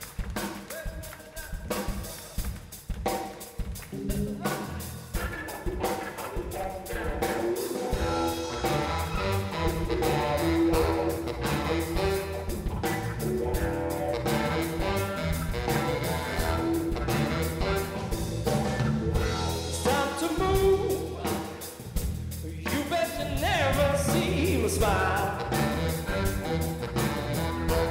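A live blues band playing an electric guitar and drum kit. It opens with sparse drum hits and rimshots, then the guitar comes in, and a full groove with a heavy bass line sets in about eight seconds in.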